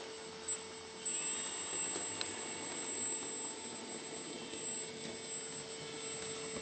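Powered-up Lesu CAT 374FL RC hydraulic excavator running in place: its hydraulic pump and ESC cooling fan give a steady hum with a faint high whine.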